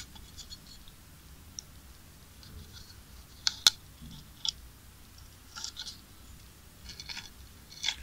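Faint, scattered clicks and light scratching of a plastic charger casing being handled and turned in the hands while a glue nozzle is run along its inner edge, with one sharper click about three and a half seconds in.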